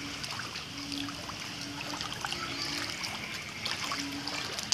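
Heavy rain falling: a steady hiss of water dotted with the ticks of individual drops.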